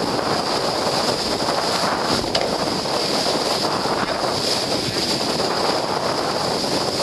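Wind buffeting the microphone over the steady rush of water along a Melges 32 racing sailboat's hull, with a single sharp click a little over two seconds in.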